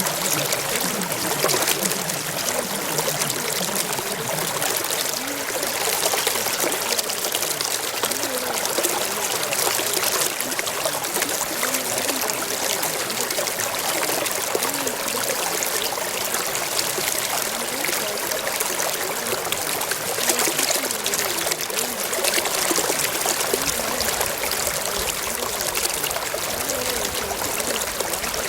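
Running water, a steady trickling stream.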